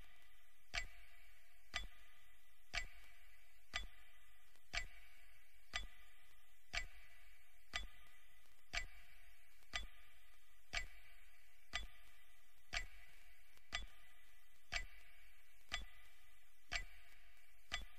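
Clock ticking steadily, about once a second, over a faint steady hiss: a broadcast radio minute of silence.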